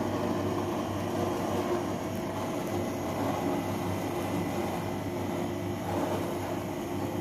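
A steady mechanical hum with a low drone and a faint thin high tone, unchanging throughout.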